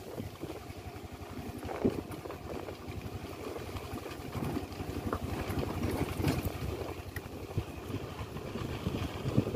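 Engine of a slow-moving vehicle running with a low, rapidly pulsing rumble, with a few brief knocks.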